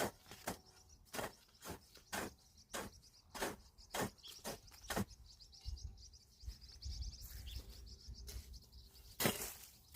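Footsteps walking steadily on dry ground, about two steps a second. High bird chirping runs faintly behind them, growing stronger from about five seconds in.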